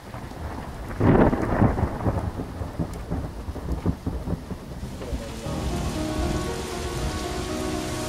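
Thunder cracks suddenly about a second in and rumbles on over steady rain for several seconds. Music with long held notes comes in about halfway through.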